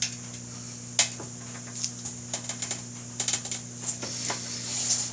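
Scattered sharp metallic clicks and taps of hand tools and parts knocking against a motorcycle wheel, over a steady low hum.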